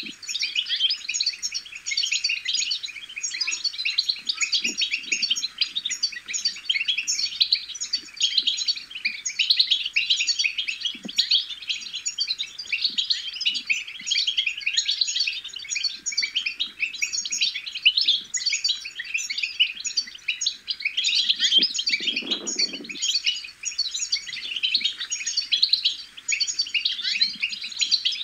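European goldfinch babbling subsong: a dense, continuous twitter of rapid chirps and trills with no pauses. This is the practice song of young goldfinches.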